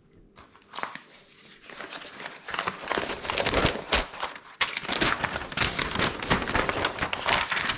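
Paper instruction sheet being unfolded and handled, rustling and crinkling; quiet with a few clicks at first, busier and louder from about two seconds in.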